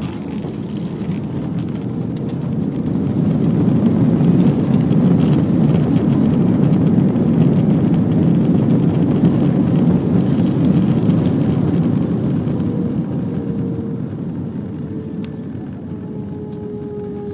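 Airliner's jet engines run up in reverse thrust on the landing roll, a loud rush that swells over a few seconds, holds, and then dies away. A thin whine falls slowly in pitch near the end as the engines spool down.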